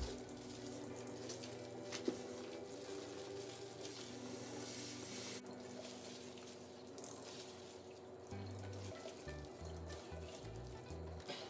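Liquid trickling and dripping into a pot as a cloth bundle of boiled, chopped collard greens is wrung out by hand, with a few small clicks. Background music with held tones and a stepping bass line plays over it.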